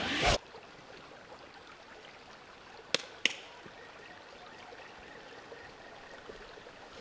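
A quick rising whoosh that cuts off sharply, then two sharp clicks about three seconds in, a third of a second apart, the second with a brief ringing ping. Otherwise only a faint steady hiss.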